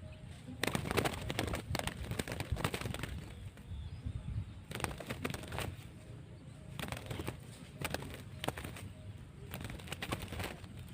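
A dove cooing among repeated bursts of rustling noise. The loudest rustling runs from about half a second in to three seconds, and again around five seconds in.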